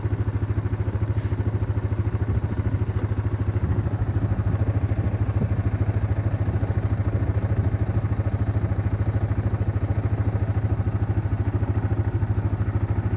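An engine idling steadily, with an even, rapid pulse that does not change.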